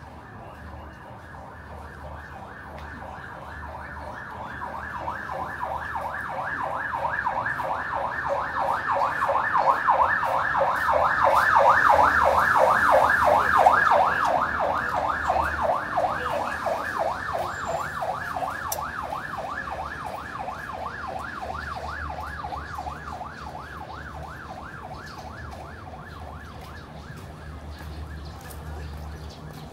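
Emergency vehicle siren wailing in fast up-and-down sweeps. It grows louder toward the middle as it approaches, then fades away as it passes.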